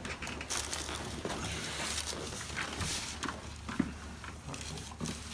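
A person shifting and turning over on a padded treatment table, making soft rustling and shuffling noises over a steady low hum, with one short click nearly four seconds in.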